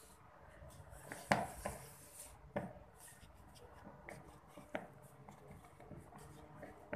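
Irregular knocks and taps of kitchen work at a counter, like utensils and hands handling dough and dishes, the loudest a little over a second in.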